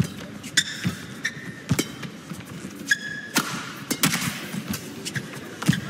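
Badminton rally: racket strings striking the shuttlecock in sharp taps about a second apart, with players' shoes squeaking on the court floor twice, in a large hall.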